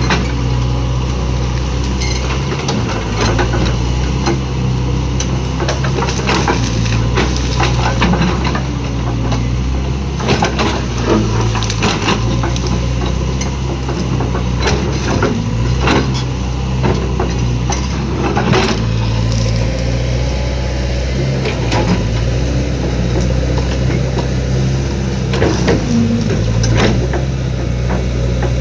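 Heavy machine's diesel engine running steadily under load, with irregular knocks and clanks throughout.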